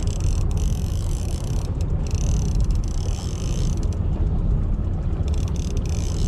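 Steady low rumble of a fishing boat under way, with a high hiss over it that comes and goes.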